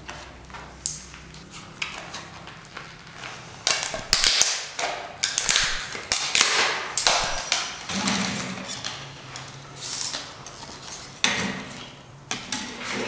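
Plastic DVD discs being bent and snapped apart by hand, with irregular sharp cracks and the clatter of shards against each other. The cracking is densest about four to seven seconds in, with another sharp snap near eleven seconds.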